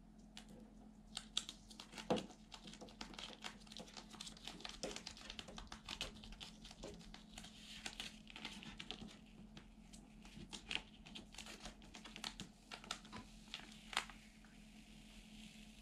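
A large paper-backed wall art sticker crinkling and crackling as hands smooth it onto the wall and peel its backing paper away, in many sharp crackles. The loudest come about two seconds in and near the end, over a faint steady hum.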